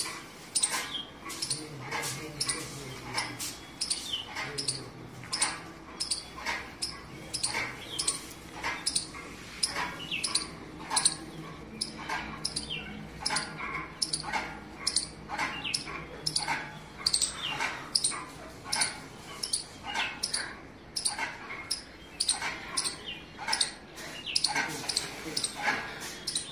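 A puppy crying in short, high-pitched whimpers, one or two a second, over and over.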